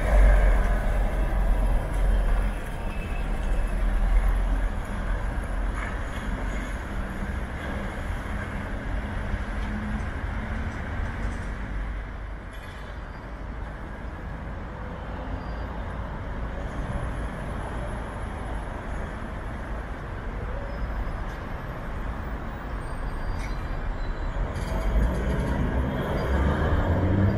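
City bus engines running in a bus terminal. A deep diesel rumble is loudest at the start and eases into steady traffic noise, and another engine rises in pitch near the end as a bus pulls away.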